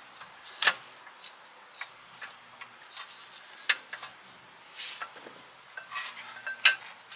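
Scattered sharp clicks and light metallic taps as a new brake pad is worked into a Jaguar XF's rear brake caliper carrier by hand. The sharpest clicks come about two-thirds of a second in, around the middle, and near the end.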